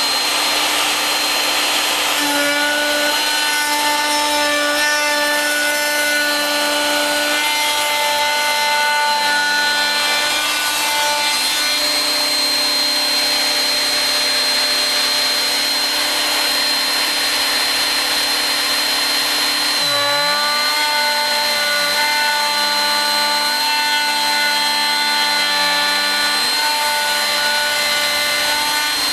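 Home-made CNC router milling wood: the cutter runs with a steady high whine and a rasping cut through the wood. In two long stretches the axis motors add humming tones that rise and fall in pitch as the machine moves.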